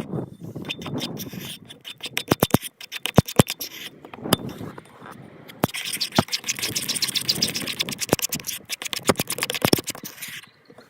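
A utensil stirring a thick glue and cornstarch mixture in a bowl: stretches of scraping broken by many irregular sharp clicks against the bowl.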